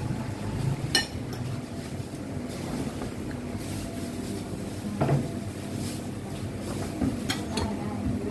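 Street-food stall background: a steady low hum with a few sharp clinks and knocks, about a second in, about five seconds in, and twice near the end.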